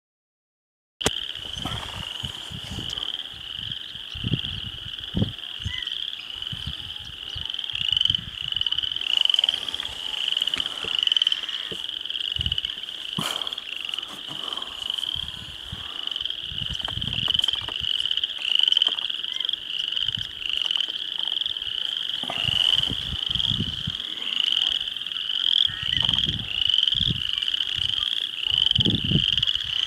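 Dense chorus of frogs: many high calls overlapping into a steady, pulsing sound that starts about a second in, with irregular low rumbles underneath.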